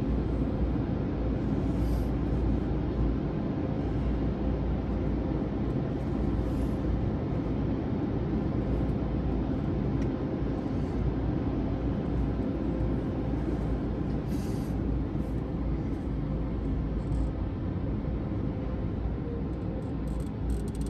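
Steady low mechanical rumble heard from inside a car's cabin, with no distinct events standing out.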